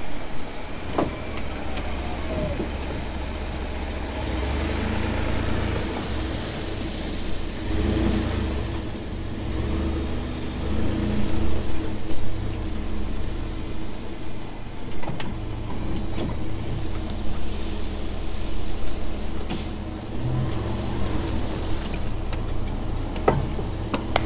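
Ford F-150 pickup's engine running as the truck is manoeuvred at low speed, with a few sharp knocks along the way.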